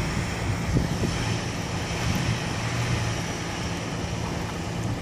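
Jeep Wrangler engine running at steady revs while its rear wheels spin in deep snow. The two-wheel-drive Jeep is short of traction and struggling to climb.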